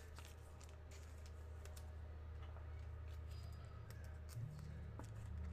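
Faint, irregular light clicks and taps over a steady low electrical hum.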